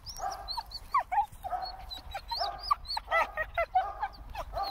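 Dog whining and yipping with excitement: many short, high cries that rise and fall in pitch, in quick succession. It is the sound of a dog overjoyed at going for a walk.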